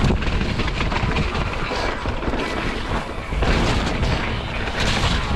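Wind buffeting the microphone over a mountain bike rattling along a rough trail: a constant low rumble broken by knocks and clatter.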